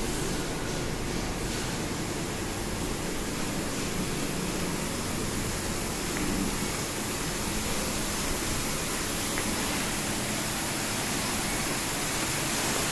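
Steady, even hiss of factory-floor ambient noise, with no single machine standing out.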